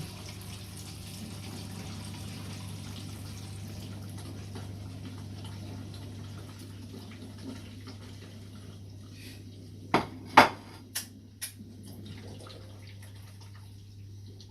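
Kitchen utensils and a Pyrex glass baking dish knocking sharply four or five times about ten seconds in, the second knock the loudest, over a steady background hum and hiss.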